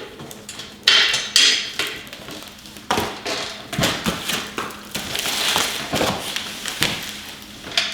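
Hand tools working a nut and bolt on a steel cart frame: a string of irregular sharp metal knocks and clanks, with rattling in between, as the nut is tightened down.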